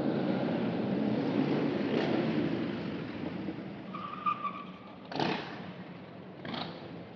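Car driving slowly through city streets: a steady road and wind rumble that eases off about three seconds in. A short high squeal comes about four seconds in, and two brief sharp sounds follow near the end.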